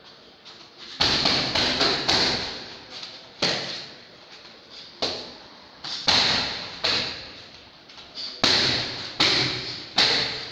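Kicks landing on a hanging heavy punching bag: about a dozen sharp thuds at an irregular pace, several coming in quick twos and threes.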